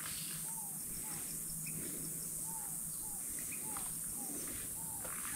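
Countryside ambience: a steady high-pitched insect drone, with a bird's short down-slurred chirps repeated several times a second over it.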